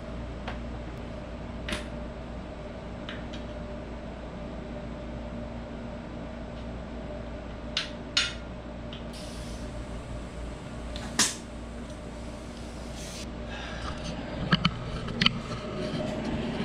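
Scattered clicks and knocks from a bicycle wheel and tyre being handled on a work stand, a cluster of them near the end, over the steady hum of a wall air conditioner.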